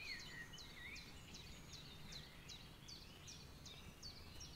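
Faint bird song: a run of short high notes repeated about two to three times a second, over a steady low outdoor rumble.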